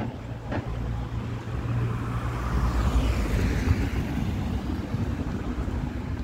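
A car driving on the street: engine and tyre noise that swells to its loudest about halfway through and then eases, over a steady low rumble.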